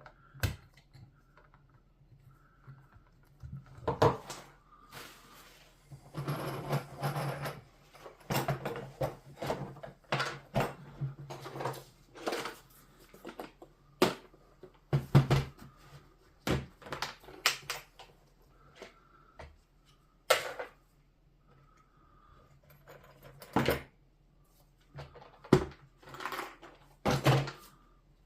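Irregular clicks and knocks with short stretches of scraping as parts and tools are handled during work on an air rifle, over a faint steady low hum.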